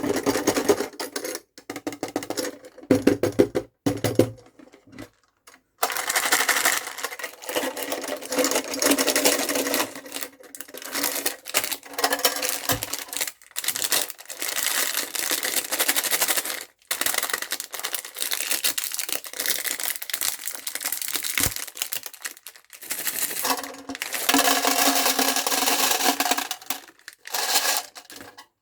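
Candy pouring into and rattling around a metal box, a dense clatter of many small pieces striking metal. It starts as scattered clicks with gaps, then becomes a near-continuous rattle with short breaks from about six seconds in.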